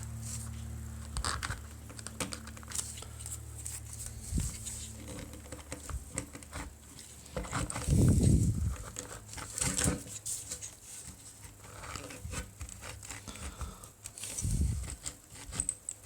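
Plastic scraper scraping leftover foam surround material off the edge of a 6.5-inch woofer, in short scratchy strokes. A dull thump about eight seconds in and another near the end.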